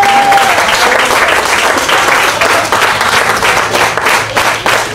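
Church congregation applauding: many hands clapping in a dense, steady patter.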